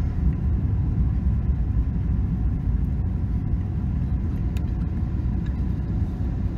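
Steady low rumble of engine and airflow noise inside the cabin of a Boeing 777-200ER on final approach.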